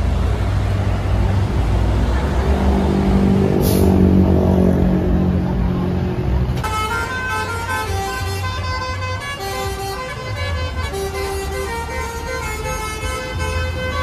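Bus engine running, then about six and a half seconds in a basuri telolet horn starts playing a tune: a run of held musical notes that change pitch step by step over the engine.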